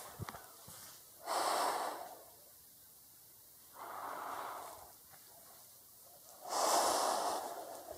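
A person breathing heavily close to the microphone: three loud breaths, about two and a half seconds apart.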